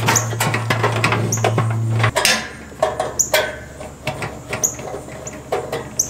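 Screws being turned out by hand from the sheet-metal shield of a portable propane water heater: clicks and metal clinks from the screwdriver, with short high squeaks as the screws turn. A steady low hum runs underneath and cuts off suddenly about two seconds in.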